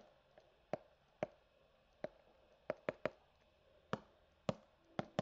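Stylus tip tapping and clicking against a tablet screen while handwriting, about a dozen sharp, faint clicks at irregular intervals.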